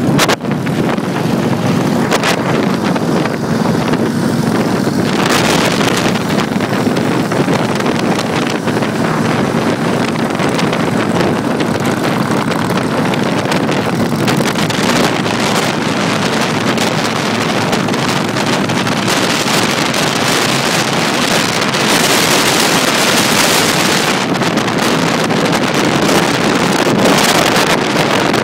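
Motorcycle engines running as a group of bikes rides along, under heavy wind buffeting on the microphone that comes in stronger gusts of hiss now and then.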